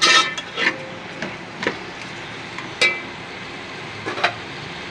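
A slotted metal spoon stirring chicken and potatoes in a metal pot, clattering and scraping against the pot loudly at first and then knocking it a handful of times, one with a short ring. Underneath, the oil sizzles steadily as the chicken fries.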